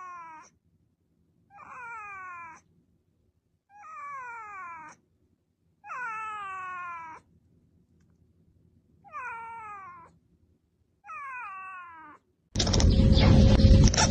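Cat meowing: six drawn-out meows, each about a second long and falling in pitch, roughly two seconds apart. Near the end a much louder, noisy sound takes over.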